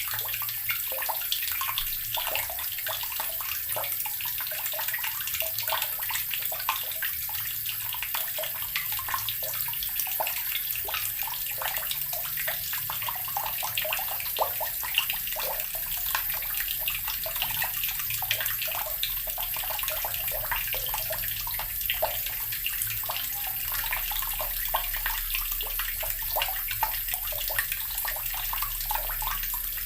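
Water running steadily from a tap, splashing without a break.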